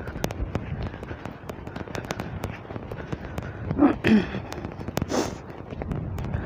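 Wind buffeting a phone microphone outdoors, with a low rumble and many irregular crackles and clicks. A brief voiced sound comes about four seconds in, and a short hiss just after five seconds.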